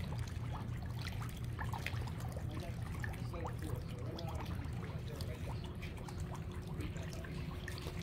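Water trickling and splashing as a dense school of carp jostles at the surface, with many small splashes and sips over a steady low rumble.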